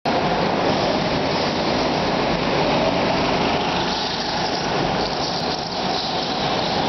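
Go-kart engines running around an indoor track, blending into a steady dense drone echoing in the hall.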